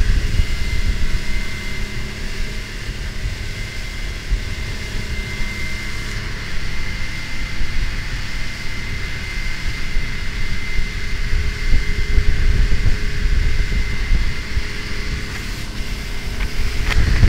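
Outboard motor running steadily at cruising speed as the boat planes across open water, with wind rumbling on the microphone. The running stays even, with no change in engine speed.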